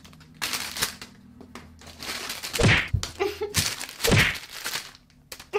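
Handling noise: scuffling and several dull thumps. The two loudest come about two and a half and four seconds in.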